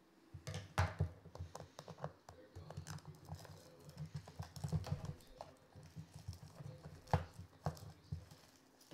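Cellophane shrink-wrap crinkling and tearing as hands peel it off a cardboard trading-card box, with the box knocking and bumping on a wooden table. The sharpest knocks come about a second in and again about seven seconds in.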